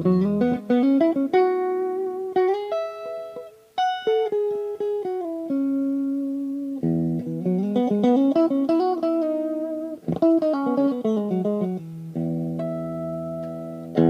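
Fernandes FST-50 Stratocaster-style electric guitar played clean. A low chord rings, then a rising run of single plucked notes follows, and the phrase repeats. There is one sharp strummed hit about ten seconds in.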